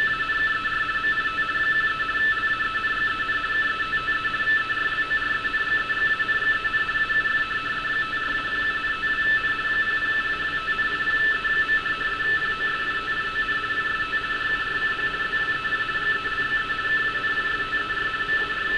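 Radioteletype (RTTY) signal on an HF receiver: two tones a little under half a kilohertz apart, switching rapidly back and forth in a steady warble as a navigation warning is sent, over a hiss of radio static.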